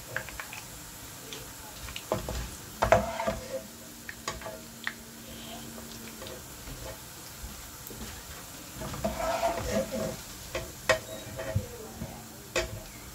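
A slotted metal spatula scrapes and knocks against a nonstick wok while fried onions are lifted out of the hot oil, over a faint steady sizzle of the oil. The sharpest knocks come about three seconds in and near eleven seconds.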